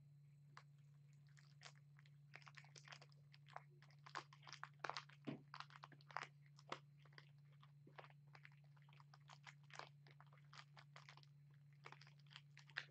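Faint, irregular crinkling and crunching clicks of a kitten chewing on a crinkly ball toy, busiest a few seconds in, over a steady low hum.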